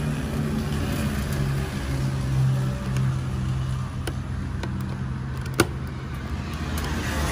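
A steady low engine hum, with one sharp click about five and a half seconds in.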